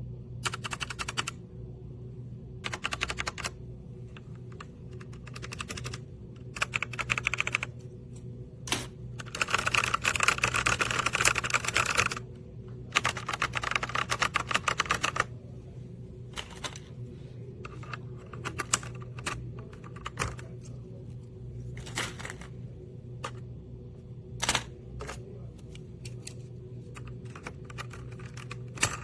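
Typing on a mechanical keyboard: quick runs of key clacks in bursts, the longest and loudest about a third of the way in, with scattered single key presses between, over a steady low hum.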